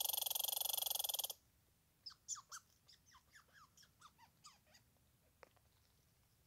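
Red squirrel's rapid, buzzy chatter that cuts off abruptly about a second and a half in. After it comes a run of faint, high, quickly falling chirps over the next three seconds.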